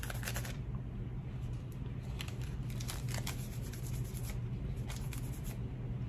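A small piece of powdered bronzing paper being handled and rubbed against the skin of the back of a hand: light, irregular paper rustles in short clusters, over a steady low hum.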